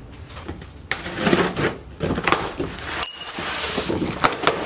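Cardboard shipping box being torn open: scraping and tearing of the cardboard with scattered clicks. About three seconds in there is a brief metallic clink.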